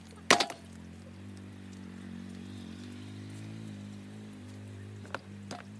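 A heavy knife chopping raw chicken on a wooden log chopping block: one sharp chop just after the start, then two lighter knocks near the end.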